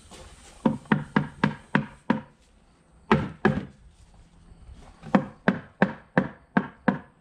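Claw hammer striking a wooden box being nailed together: a quick run of about six blows, two more a second later, then another run of about six, roughly three blows a second.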